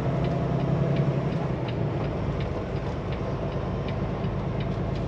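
Heavily loaded semi-truck's diesel engine heard from inside the cab while driving off, a steady low drone that eases off about two seconds in. A light ticking repeats about three times a second.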